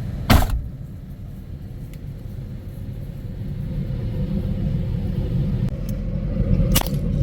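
A sharp crack from a .22 Brocock Atomic XR air rifle shot about a third of a second in, and a second sharp crack near the end, over a steady low rumble.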